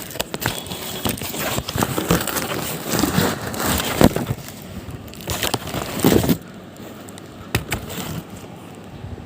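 Packaging being handled and torn open: irregular crinkling and rustling with sharp crackles for about six seconds, then softer rustling with a few clicks.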